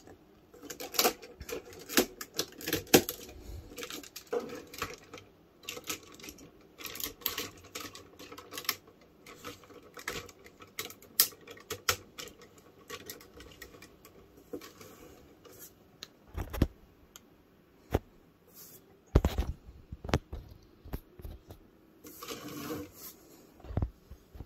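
Hard plastic toy train pieces being handled, turned and snapped together into a combined robot: a steady run of irregular clicks and clacks, with a few heavier knocks in the second half.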